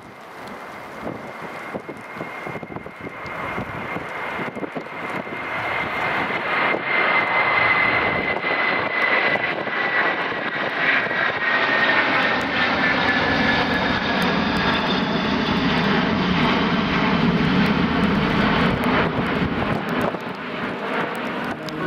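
Turkish Airlines Airbus A330-200's Pratt & Whitney PW4000 turbofans at take-off power, growing louder as the jet approaches. A high whine slowly drops in pitch as it passes, and a deep rumble follows in the second half.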